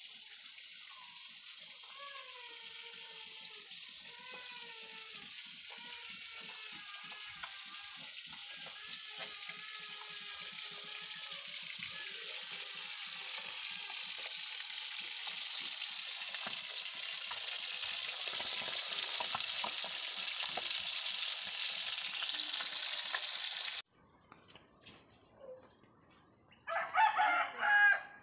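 Food sizzling in a wok over a wood fire, a steady hiss that grows louder, with light crackles from the burning wood. After a sudden cut, a rooster crows loudly near the end.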